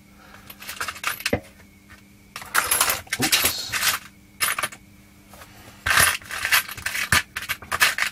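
Small metal screwdriver bits clinking and rattling against each other in several bursts as they are rummaged through by hand.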